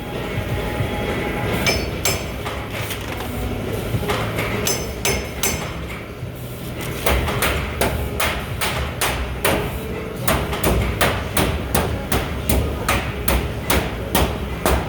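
Air hammer striking sheet-metal ductwork: a few sharp metallic blows a couple of seconds in and again about five seconds in, then a steady run of about three blows a second through the second half. A steady low hum runs underneath.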